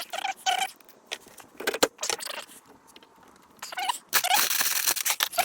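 Two-part adhesive being stirred and scraped with a mixing stick: irregular scraping strokes with short squeaks, heaviest near the end.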